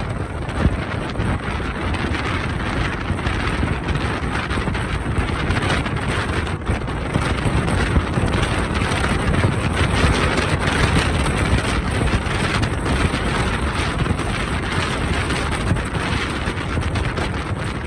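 Steady rushing wind and road noise from a moving vehicle, with wind buffeting the microphone.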